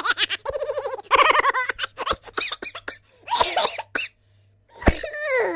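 Silly laughing sound effect: bursts of rapid, high-pitched cackling laughter broken by short pauses, ending in a falling squeal.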